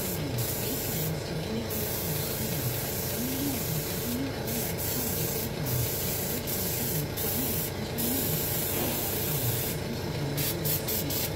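Airbrush spraying paint: a steady hiss of air, thinning briefly now and then as the trigger eases off.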